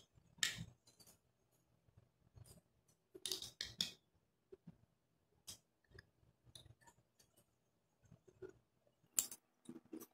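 Faint, scattered rustles and clicks of thin tissue paper being handled and smoothed onto wet egg white on the face, pressed down with a metal spoon. The sounds come in short separate bursts, the longest about three seconds in.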